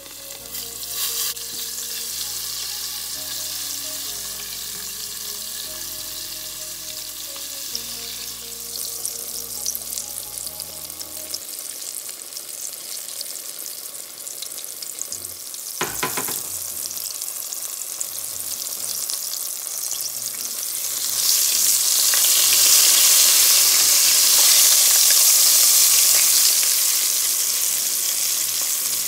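Breaded broccoli florets deep-frying in hot oil in a pot: a steady sizzle that grows louder about two-thirds of the way through. A single sharp click near the middle.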